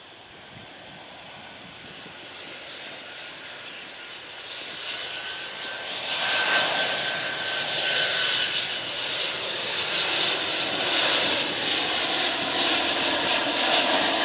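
Boeing 737-800 freighter's CFM56 turbofan engines on final approach, growing steadily louder as the jet comes closer, with a thin fan whine in the middle.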